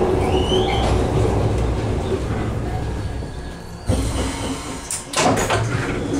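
Glasgow Subway train heard from inside the car: a heavy wheel-and-track rumble with a brief wheel squeal, easing off as the train slows toward a station. A sharp jolt just before four seconds in, then a burst of clanks and screeches a second later, from the rough ride.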